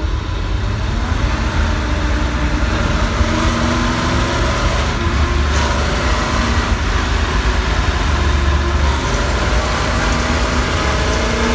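Car engine running and accelerating, its pitch rising a few times, with the rattle that shows up under acceleration.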